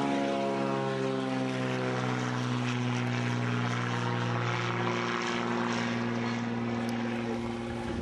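Light single-engine propeller plane taking off, its engine and propeller giving a loud, steady drone. The upper tones slide down in pitch over the first two seconds, then hold, and the drone starts to fade at the very end.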